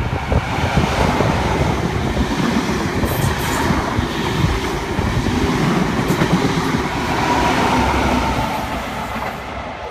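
Grand Central High Speed Train (InterCity 125) passing through a station at speed: a steady, loud rush of wheel and rail noise as the leading Class 43 power car and the coaches go by, with the rear power car passing close near the end before the noise falls away.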